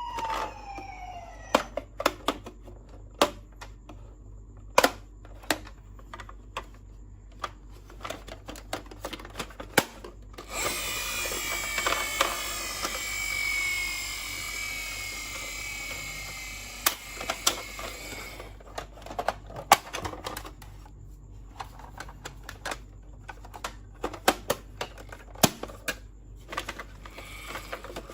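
Toy ambulance minicar: a siren tone wavering up and down stops about a second in, followed by scattered sharp plastic clicks and clatter. From about ten to eighteen seconds in there is a dense whirring with a slowly falling whine.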